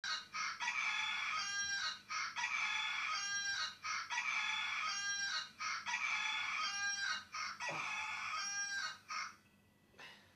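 A rooster crowing, about five crows one after another at even spacing, stopping about nine seconds in.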